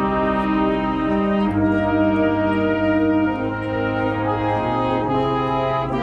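A brass ensemble playing a slow piece in sustained chords, the notes changing every second or so.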